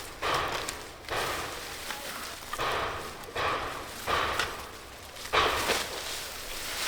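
Repeated noisy scrapes and rustles, roughly one a second, each starting sharply and trailing off, from working soil and plant growth to dig up a large tuber.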